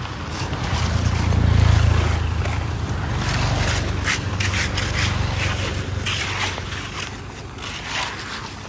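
A motor vehicle going past on the road: a low engine hum that swells to its loudest about a second and a half in, holds, then fades away near the end, over rough scraping noise.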